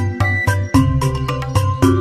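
Background music: a melodic track with held notes over a bass line and a steady beat of about four hits a second.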